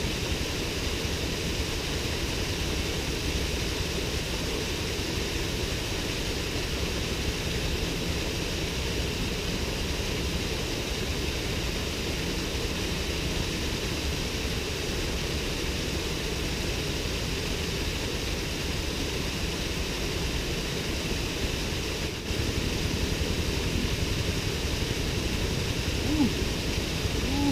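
Steady rushing and splashing of a small waterfall pouring into a river pool, a little louder over the last few seconds.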